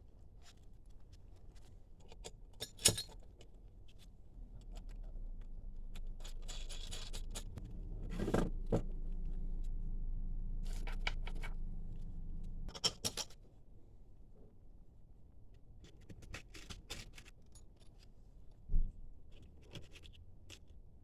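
Hand tools and metal parts clinking and scraping as an air-intake adapter plate is bolted on, with a sharp knock about three seconds in and another near the end. A low steady hum comes in about four seconds in and stops suddenly a little past the middle.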